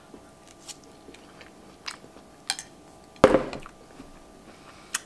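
A person chewing a mouthful of scrambled eggs, spinach and sausage close to the microphone: soft, sparse mouth clicks and smacks, with one louder thump a little after three seconds in.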